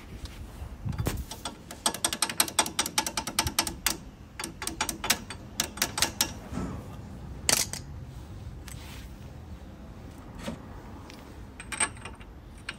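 Hand tools on metal at a car's front wheel hub: quick runs of clicks, about ten a second, about two seconds in and again a little later, with a few single sharp knocks after. This is the work of taking the locking clip off the driveshaft (CV) nut.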